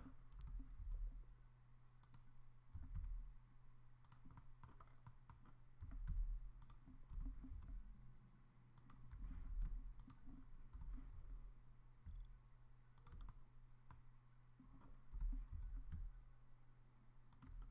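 Faint, scattered computer mouse clicks and keyboard keystrokes over a steady low hum, with occasional soft low thumps.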